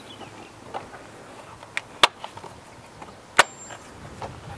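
Clips on the plastic air filter housing cover snapping open by hand: two sharp clicks about a second and a half apart, with a couple of fainter knocks before them.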